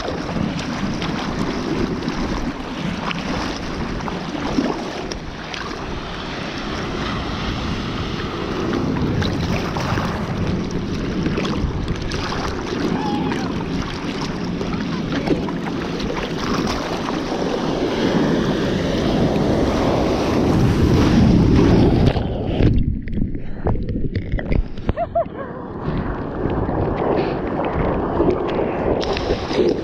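Sea water sloshing and splashing around a bodyboard as the rider paddles through the swell, with wind buffeting the microphone. About 22 seconds in the sound turns muffled and dull.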